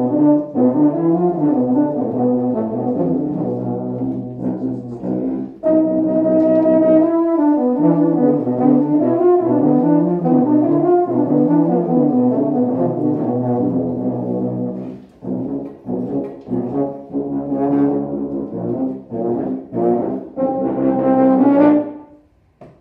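Tuba and euphonium playing a duet, two brass lines moving together. About two-thirds of the way through it breaks into short separated notes, then ends on a loud held chord that stops shortly before the end.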